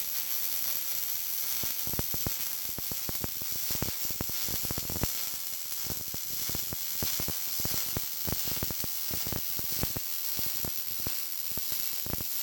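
Electric arc welding with a Miller welder on a steel fuel tank: a steady crackling hiss full of rapid sharp pops as a weld bead is run, starting and stopping abruptly.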